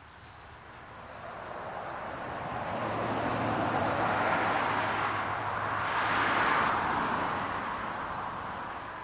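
A road vehicle passing by: a smooth swell of tyre and engine noise with no rhythm, rising from about a second in, loudest around five to six seconds in, then fading.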